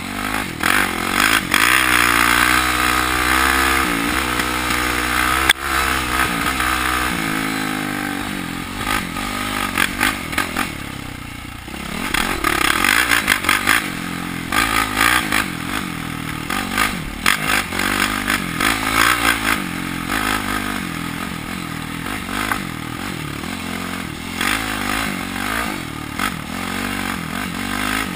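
ATV engine running hard, its pitch rising and falling repeatedly as the throttle is worked through the ride. It eases off briefly around eleven seconds, then comes back on, with gusty rough noise on the helmet-mounted microphone.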